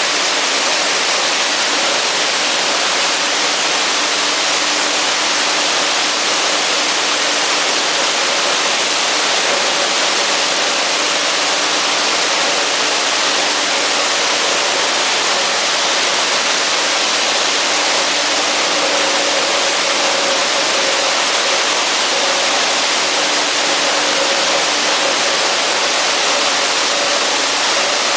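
PP/PE plastic film washing and recycling machine running: a steady rush of water and machinery, with a faint motor hum that comes and goes.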